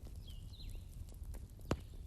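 Wood bonfire burning: a low rumble of flames with scattered crackles and one loud pop near the end. A short chirping bird call is heard once early on.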